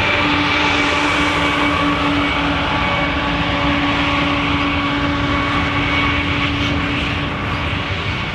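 Freight train rolling past: a steady rumble of rolling cars with a steady droning tone over it. The drone fades near the end.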